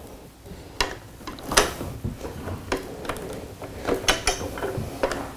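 Parts of a 1x2 light panel being slid and fitted together by hand: a run of irregular small clicks and knocks as the piece is worked into line.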